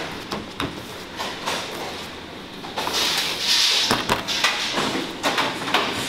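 Metal baking trays clattering and sliding on a steel work bench, with scattered knocks and a short hiss about three seconds in.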